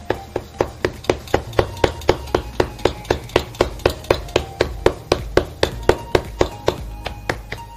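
Palms patting jowar (sorghum) flour dough flat in a floured steel plate to shape a bhakri: quick, even slaps, about four or five a second.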